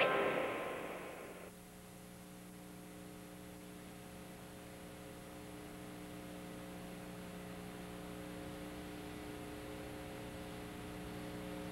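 Music fading out over the first second and a half, leaving a steady electrical mains hum with several overtones that grows slightly louder.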